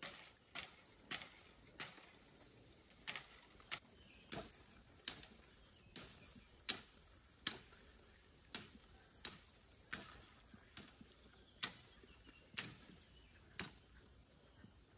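A blade chopping at bamboo: about eighteen short, sharp knocks at an uneven pace of one every half second to a second, with a slightly longer pause about two seconds in.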